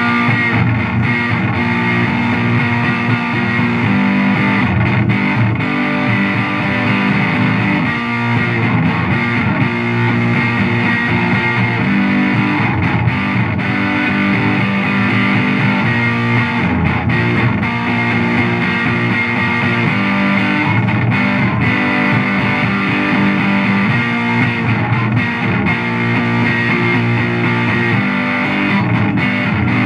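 Distorted electric guitar played through a Laney amplifier: a continuous riff that repeats about every four seconds.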